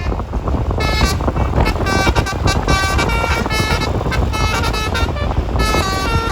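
A bus's Basuri telolet horn plays a tune of stepped multi-tone blasts, starting about a second in and pausing briefly near the five-second mark, over the low rumble of the passing bus.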